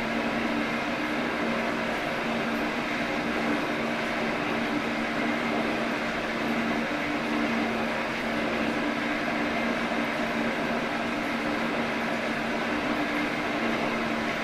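Metalworking machine tool running steadily while machining an aluminum block, with a constant motor hum under an even mechanical noise.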